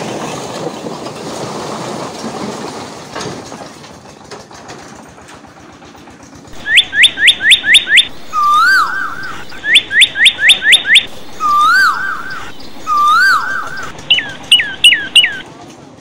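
A load of bricks sliding and clattering out of a tipping tractor trolley, dying away about four seconds in. From about halfway on, loud bird-like whistled calls come in: bursts of about six quick falling chirps alternating with single rising-and-falling whistles.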